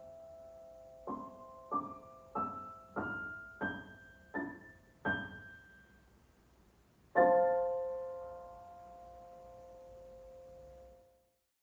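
Solo piano music: a slow run of seven single notes, their pitch mostly climbing, then a final chord about seven seconds in that rings for several seconds and fades out.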